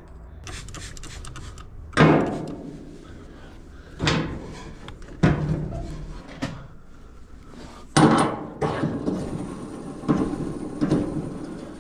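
About seven sharp knocks on the dryer's parts, spaced one to two seconds apart, each ringing briefly as it dies away.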